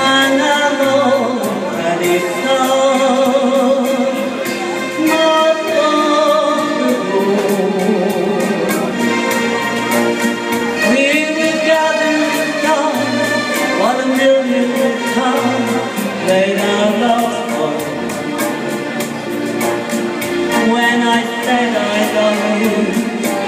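A woman singing a song into a handheld microphone, her amplified voice carried over musical accompaniment with a steady beat.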